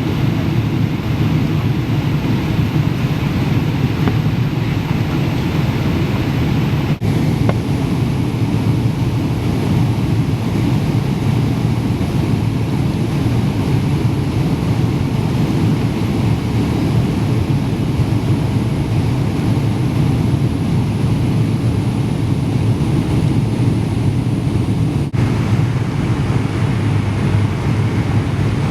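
Steady jet airliner cabin noise: the low, even drone of engines and rushing air heard from inside the cabin. It breaks off for an instant about seven seconds in and again near the end.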